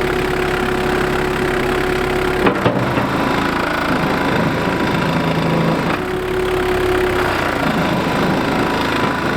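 JCB Midi CX backhoe's diesel engine idling at about 1150 RPM, just after its idle speed was raised from 950 RPM toward the specified 1200 RPM. There is a sharp knock about two and a half seconds in, after which the low part of the running sound changes.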